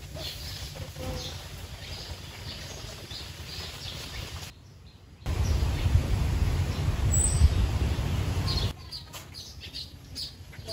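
Small birds chirping now and then over outdoor background hiss. A stretch of loud, low rumbling noise runs from about five to nine seconds in.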